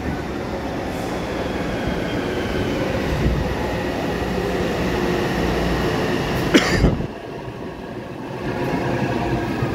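Taipei Metro steel-wheel high-capacity trains running through the station as two trains pass each other: a steady rumble of wheels on rails with a faint motor whine. A sharp clack comes about two-thirds of the way through, after which the rumble eases.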